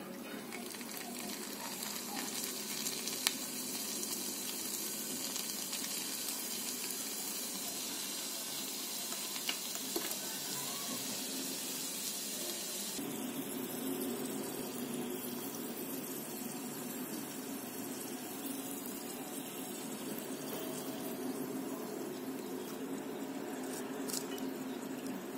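Small batch of potato sticks deep-frying in a miniature pan of hot oil: a steady sizzling and bubbling, with a few faint clicks. The sizzle changes in tone abruptly about halfway through.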